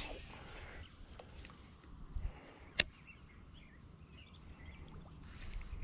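A single sharp click a little under three seconds in, over quiet outdoor background with faint bird chirps.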